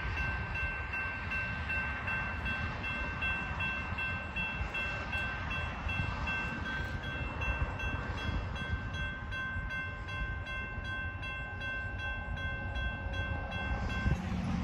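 Railroad crossing bell ringing steadily while the warning lights flash and the gates come down for an approaching train. It stops near the end as the gates reach horizontal, leaving a steady low rumble underneath.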